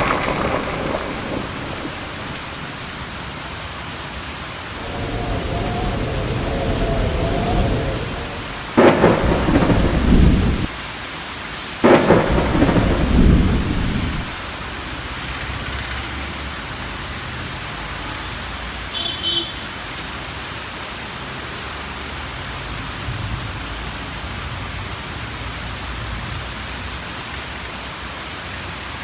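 Steady rain during a thunderstorm, with a low roll of thunder and then two loud thunderclaps about three seconds apart, each rumbling away over a second or two.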